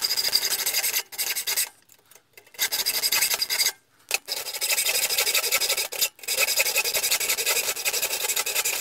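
Hand hacksaw cutting through steel square tubing clamped in a vise: runs of steady rasping back-and-forth strokes, broken by a few short pauses.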